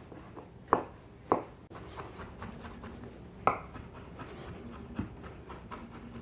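Kitchen knife chopping garlic cloves on a cutting board. There are two sharp chops in the first second and a half, then scattered lighter taps, with a firmer chop about three and a half seconds in and another about five seconds in.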